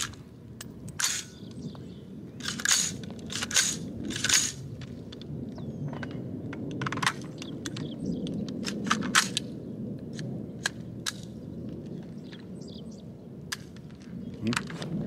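AR-15 rifle fired one shot at a time at an uneven pace, a dozen or more sharp cracks. The loudest come in the first few seconds, each with a short ringing tail.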